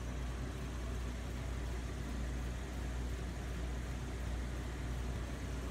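Aquarium equipment running: a steady low hum under an even hiss of bubbling air.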